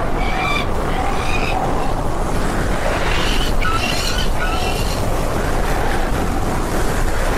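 Tornado wind roaring in a loud, steady rush, with short high-pitched cries breaking in repeatedly over it, several of them sliding down in pitch around the middle.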